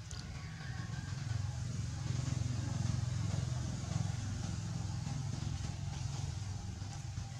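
Low engine rumble of a motor vehicle, swelling over the first two seconds and then holding steady.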